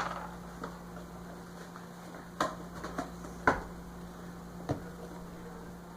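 Light clicks and knocks of plastic toy pieces being handled and set down, about six in all, the sharpest about halfway through, over a faint steady hum.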